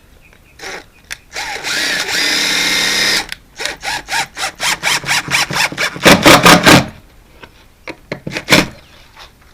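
Power drill running: a short burst, then a steady run of about two seconds with a motor whine, then a rapid string of short trigger pulses, a louder burst near the middle, and one last short burst.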